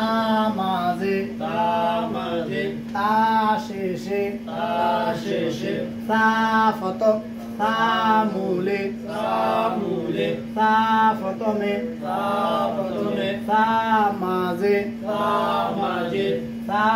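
A man's voice reciting Arabic letter names and their positional forms in a sing-song chant, short phrases one after another, over a steady low hum.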